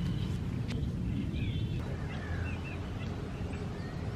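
Outdoor park ambience: a low steady rumble with several short bird chirps scattered through it.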